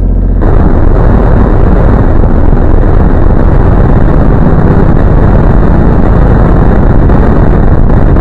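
Heavily overdriven, clipped audio: a held pitched tone gives way about half a second in to a harsh, very loud, steady wall of noise with deep bass.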